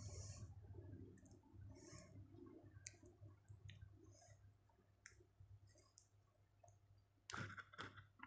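Faint wet mouth clicks and smacks of someone chewing food close to a lapel microphone. A short rustle comes near the end.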